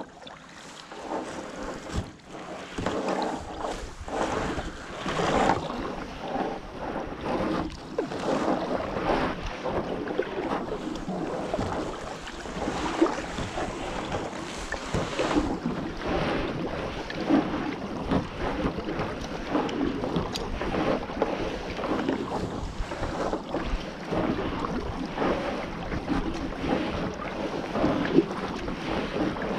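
Kayak paddle strokes dipping and splashing in calm water, with wind buffeting the camera microphone.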